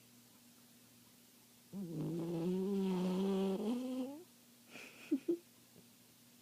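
Papillon dog snoring: one long pitched, steady snore lasting about two seconds, then two short squeaky snorts about a second later.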